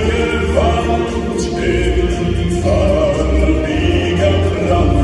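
Live German folk-song singing: a male lead voice with female backing voices, accompanied by piano and acoustic guitar.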